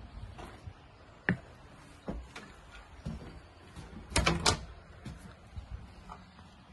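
Footsteps knocking on a wooden porch deck, then a glass-panelled wooden door clicking and clattering as it is pushed open about four seconds in, the loudest sound.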